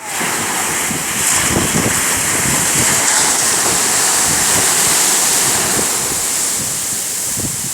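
Sea surf washing ashore: a loud, steady hiss of breaking waves, with wind rumbling on the microphone.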